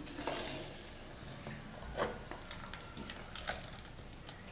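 Stainless-steel mixer jar and pot scraping and clinking as thick, coarsely ground horse-gram paste is scooped from the jar into the pot: a scraping rub in the first second, then a few short light clinks of steel on steel.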